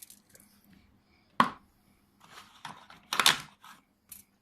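Small parts and tools being handled on a workbench: a sharp tap about a second and a half in, some light scraping, then a louder clatter just after three seconds.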